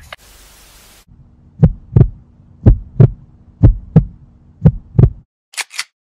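Heartbeat sound effect: four deep lub-dub double beats about a second apart over a low steady hum. Near the end come two brief sharp high sounds.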